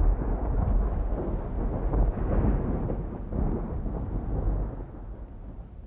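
A low rolling rumble of thunder, loudest in the first couple of seconds and slowly dying away.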